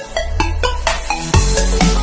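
Electronic intro music with a steady beat; a heavy bass comes in at the start and gets louder partway through.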